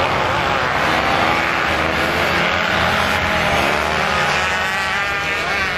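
Several motocross bikes' engines revving together on a sand course, the pitches rising and falling as the riders throttle up the dunes.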